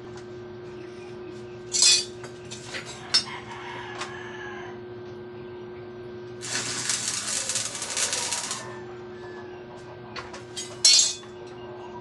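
Arc welding on steel: the electrode arc crackles and sizzles for about two seconds in the middle. Sharp metal clinks come near the start and again near the end, over a steady low hum.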